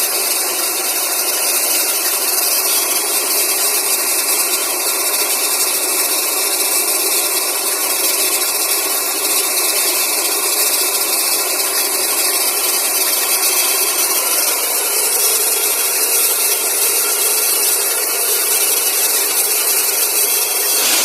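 Air compressor running steadily, with a loud continuous hiss of compressed air blowing through a borewell as it is flushed clean.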